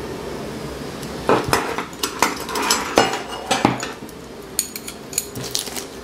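Metal plates and arms of a Tarot TL2877 remote-control tray knocking and clinking together as they are handled. A string of sharp clicks starts about a second in, followed by lighter, brighter clicks near the end.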